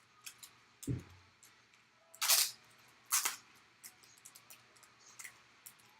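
Handling noise as a trading card is pulled from its packaging: a low bump about a second in, then two short scraping rustles about a second apart, with light clicks and ticks between.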